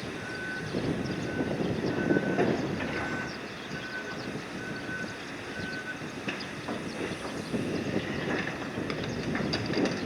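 Cargo-handling machinery running steadily during crane unloading, with scattered knocks and clanks. A high warning beeper sounds six times, about once a second, through the first half and then stops.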